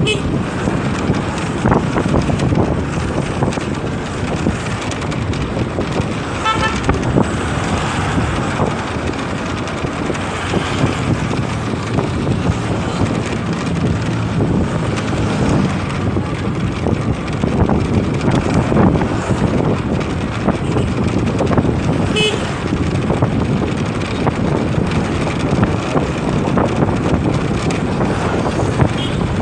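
Motorcycle riding along a road: steady engine, road and wind noise, with a vehicle horn tooting briefly about seven seconds in and again around twenty-two seconds.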